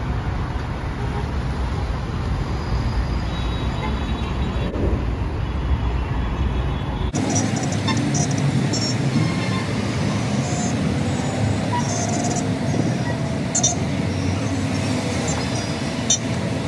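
Heavy, congested city road traffic: a steady din of engines and tyres with short car-horn toots here and there. For the first seven seconds there is only a low rumble, which cuts off abruptly into the traffic noise.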